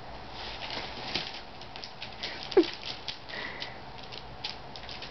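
Crinkling and crackling of shiny foil wrapping paper as a cat rolls and scrambles about on it. About two and a half seconds in, one short squeak falls in pitch.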